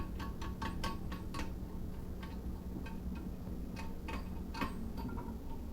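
Light metallic clicks of a nut and metal washer being turned by hand onto a toilet's tank-to-bowl bolt: a quick run of ticks, about five a second, for the first second and a half, then a few scattered clicks. The nut threads on but does not spin on freely.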